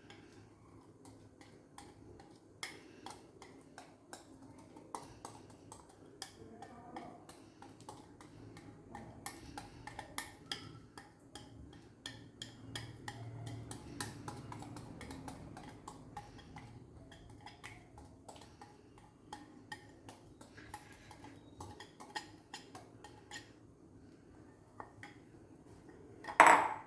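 Spatula and bowl clinking and scraping as thick brownie batter is transferred into a cake tin: a long run of small irregular taps and clicks, with one much louder knock near the end.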